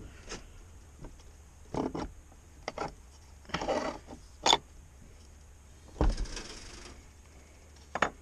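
Hand tools working on a dirt bike's rear suspension linkage: a handful of separate clanks and clicks, with two short scraping stretches.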